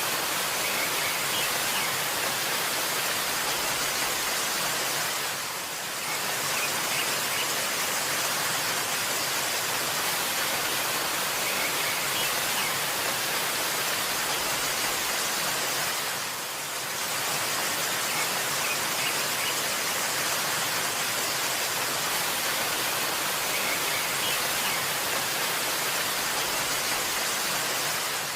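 Waterfall rushing in a steady, even hiss, dipping briefly twice, with faint bird chirps now and then.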